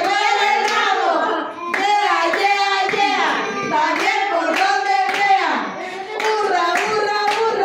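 A small group of women singing together while clapping their hands in rhythm, about two to three claps a second.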